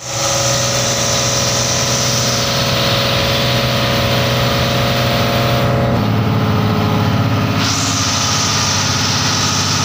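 Bangka (motorized outrigger boat) engine running steadily at cruising speed, loud and unbroken, with a rushing hiss of wind and wake that drops away briefly past the middle and then returns.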